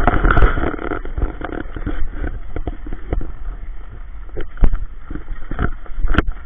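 Wheels rolling steadily over asphalt, from inline skates on K2 R100 frames and a child's small bike, with wind rushing on the microphone. A few sharp knocks come in the second half.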